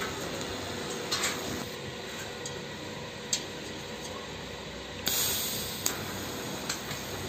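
TIG welding on a stainless exhaust pipe: a steady hiss, with a few sharp clicks and a short, louder burst of hiss about five seconds in.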